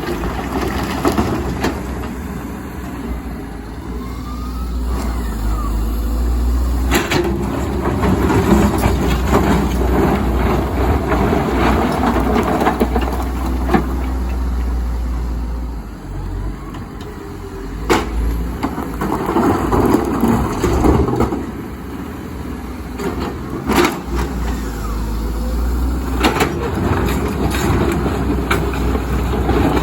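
Komatsu hybrid excavator's diesel engine running under working load, swelling and easing over the dig-and-swing cycles. Several sharp knocks and clanks of rock in the bucket cut through it.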